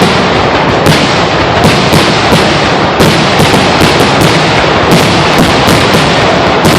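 Fireworks exploding up close in a dense, continuous barrage: many overlapping bursts and crackles several times a second, very loud throughout.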